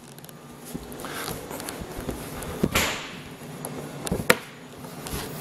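Latch and lid of a bass boat's carpeted deck hatch being worked to open the rod locker: a sharp click a little before 3 s and a louder knock a little past 4 s, with handling rustle between.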